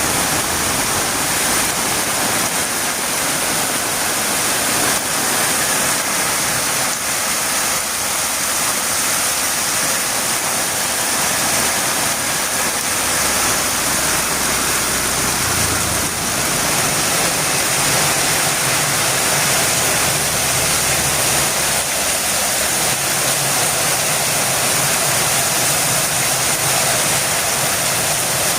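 Heavy rain falling in a steady, even hiss, with a faint low rumble underneath from about halfway through.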